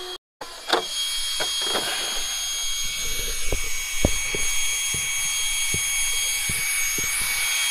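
Small electric cooling fans on the motor and speed controller of a Traxxas Maxx RC truck, whirring with a steady high whine and hiss as the motor cools after a hard 8S speed run. A few footsteps on asphalt thud through the middle.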